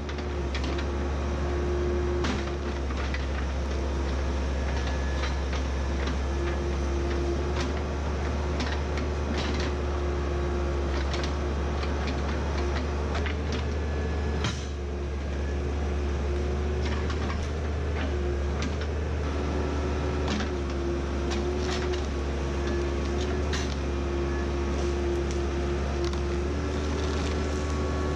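Backhoe's diesel engine running steadily with a wavering pitch, with frequent metal clanks and knocks.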